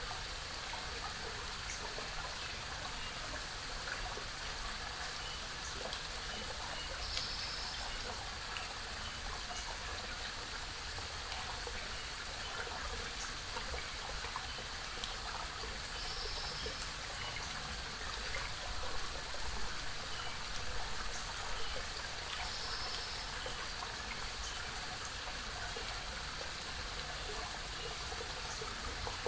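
Small forest waterfall and creek water running steadily. A faint, brief high-pitched sound recurs every four seconds or so.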